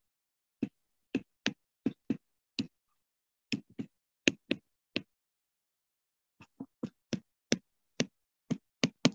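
Stylus tapping on a tablet screen during handwriting: a string of short, irregular clicks, one per pen stroke, with a pause of about a second and a half midway.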